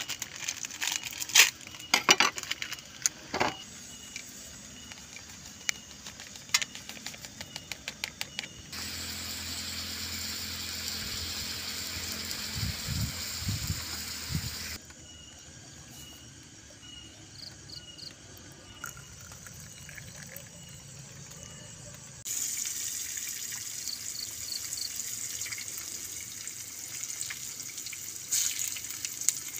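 Crinkling and clicking as a coffee sachet is cut open and handled, then a steady rush of hot water poured onto black coffee for several seconds. Near the end, a steady sizzle as breadfruit slices fry in oil in a pan on a portable gas stove.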